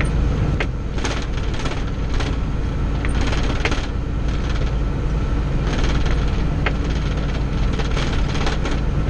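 Snowplow truck's engine droning steadily inside its cab while driving, with irregular light clicks and rattles throughout.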